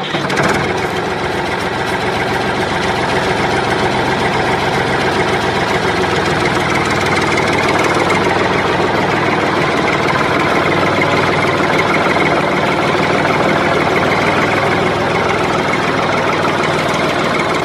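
Tractor engine running steadily and evenly, a continuous chugging drone.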